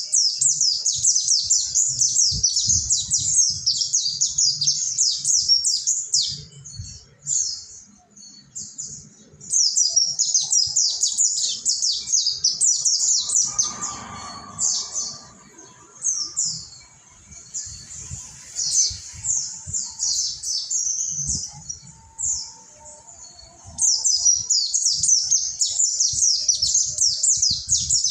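Mountain white-eyes (pleci Monty) singing a rapid, high twittering chorus in long runs, with a sparser stretch in the middle before the full chorus starts again.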